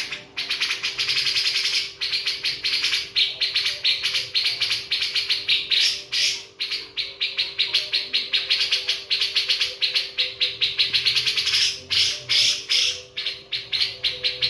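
Bird chirping in a rapid, continuous run of short high notes, many per second, with brief breaks, over a steady low hum.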